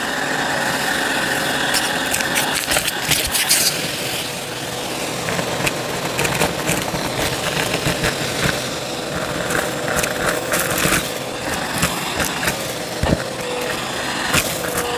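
Bissell CleanView vacuum running steadily while it sucks up crunchy debris, which crackles and clicks as it is pulled in. A steady whine in the motor sound fades out about two and a half seconds in.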